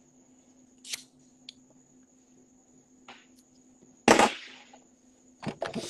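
A man smoking close to a phone's microphone: a few faint soft puffs as he draws on a lit hand-rolled smoke. About four seconds in comes a sudden loud burst of breath blown into the microphone, fading within about half a second. A faint steady high whine and a low hum sit underneath.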